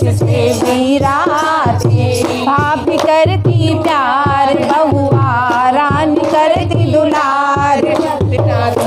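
Music of a Hindi folk naming-ceremony song: a wavering, bending melody line over a steady hand-drum beat.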